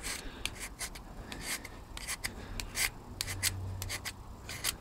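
Disposable craft knife scraping and shaving the bark off a dry, seasoned elder stick, in quick irregular short strokes, about three a second.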